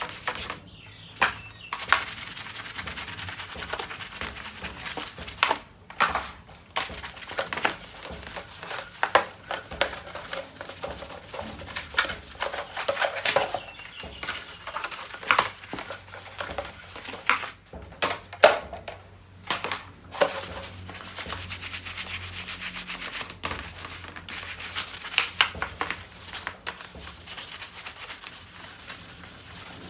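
Irregular scrubbing and rubbing strokes with scattered clicks and knocks, as parts of a dust-caked ceiling fan are scrubbed clean by hand.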